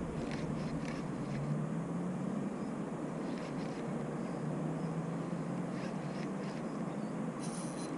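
Faint outdoor ambience: a low steady hum with slowly gliding low tones, typical of distant road traffic, and a few faint light ticks.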